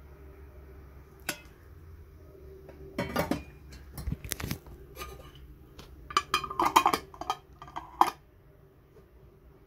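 A metal screw-on lid is fitted and twisted onto a glass canning jar of hot plum compote, sealing it. It makes a run of sharp clinks and rattles of metal on glass, thickest and loudest about six to seven seconds in, ending with a single click about eight seconds in.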